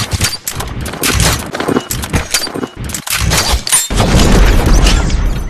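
Gunfire and explosion sound effects of an animated logo sting: a rapid run of shots and impacts, then a heavy rumbling boom about four seconds in.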